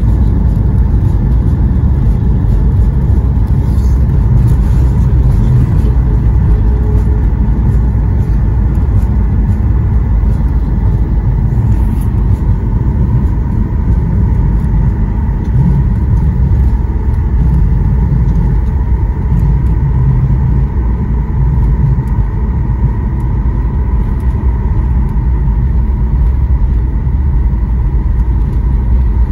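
Cabin noise aboard a Boeing 737 MAX 8 rolling along the runway after landing: a loud, steady low rumble from the wheels and airframe, with a steady whine from the CFM LEAP-1B engines.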